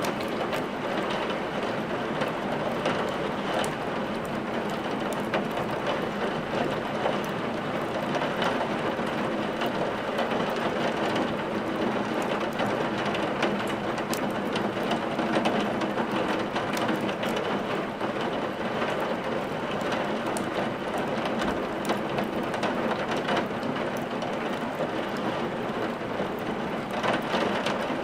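Steady rain mixed with a crackling wood fire in a fireplace: an even rush of rain with frequent small, sharp crackles throughout.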